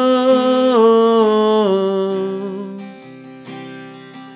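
A man singing a long held note of a Spanish worship chorus over strummed acoustic guitar. The note steps down in pitch twice, then fades about halfway through, and the guitar carries on more quietly.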